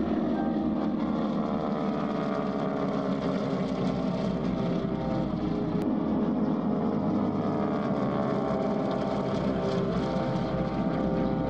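Propeller aircraft engine running steadily, its droning pitch slowly falling as the plane passes by.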